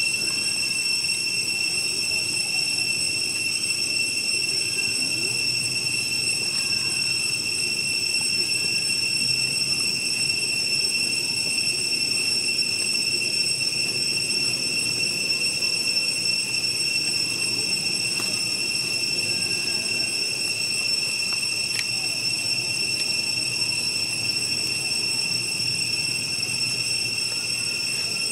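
Cicadas droning in one steady, high-pitched unbroken tone, with a faint low background rumble beneath.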